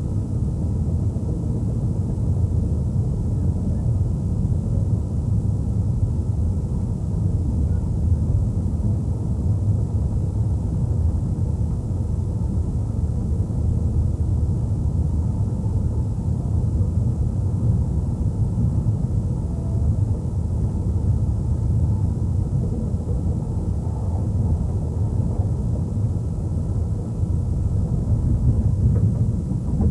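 Steady low rumble of a Southern Pacific train's rear car rolling along the track, heard from inside the car.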